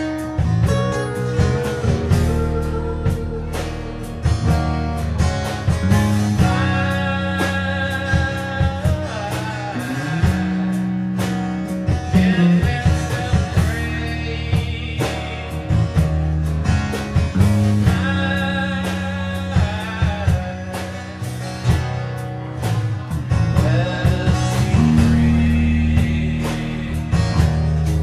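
Live band playing a rock song: strummed acoustic and electric guitars over sustained low bass notes, with a lead vocal singing over them.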